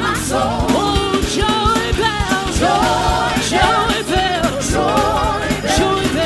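Live gospel praise-break music: a church band with drums and bass, and voices singing over it.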